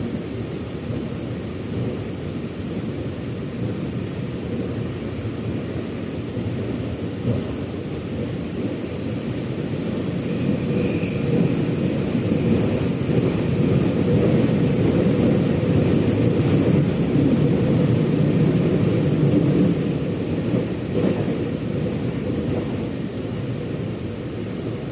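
Metro train running on its rails: a steady low rumble that grows louder about ten seconds in and eases off again near the end, with a brief faint high squeal about eleven seconds in.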